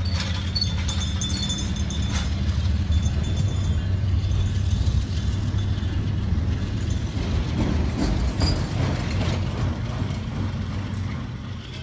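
Freight train of container-carrying flatcars rolling past close by: a steady low rumble with occasional metallic clanks and squeaks from the wheels and couplers, easing off near the end.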